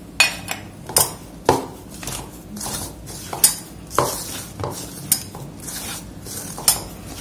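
A hand mixing dry flour and spices in a stainless steel bowl: a soft scraping rustle of flour, broken by about a dozen irregular clinks and knocks against the metal bowl.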